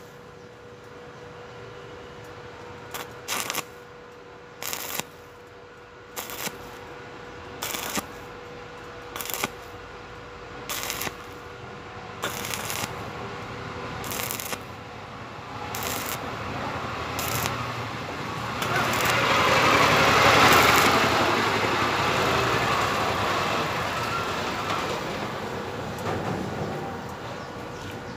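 Stick-welding arc on thin 0.8 mm steel tube. Short crackling bursts come about every one and a half seconds over a steady hiss, then a longer, louder sizzle of the arc builds about two-thirds in and fades near the end.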